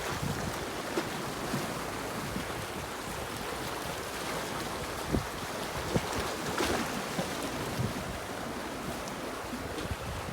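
Sea waves washing onto the shore, with wind rumbling on the microphone. One wave swells up about two-thirds of the way through, and a couple of faint knocks come just before it.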